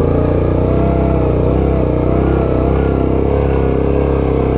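Yamaha Grizzly 700 ATV's single-cylinder engine running steadily while the quad is under way, its pitch wavering slightly.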